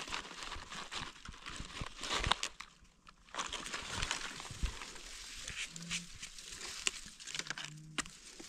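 Dry leaf litter rustling and crackling as gloved hands and a small knife dig a mushroom out of the forest floor, with scattered light clicks and scrapes of handling; the noise stops briefly about three seconds in.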